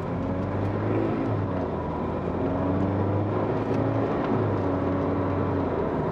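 Jaguar XE 20d's 2.0-litre four-cylinder turbodiesel pulling steadily under acceleration, heard inside the cabin with tyre and road noise. The engine has good power.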